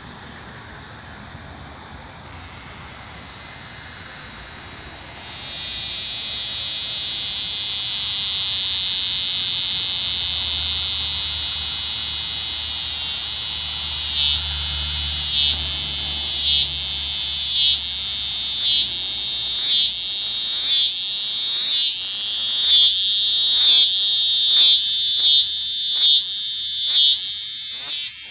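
Eastern scissor grinder cicada (Neotibicen winnemanna) calling: a loud, high buzz starts about five seconds in, holds steady, then from about halfway breaks into regular pulses, about three every two seconds, which grow more marked toward the end.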